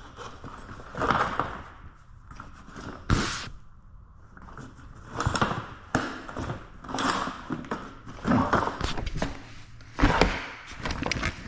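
Rustling handling noise from the body-worn camera rubbing on clothing, with irregular thuds and clunks of someone moving about and rummaging among hand tools.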